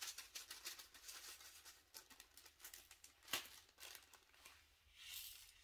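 Faint crinkling and rattling of a small plastic zip bag of resin diamond-painting drills being shaken, after being blown into to loosen drills clinging with static. There is a sharper click about three seconds in.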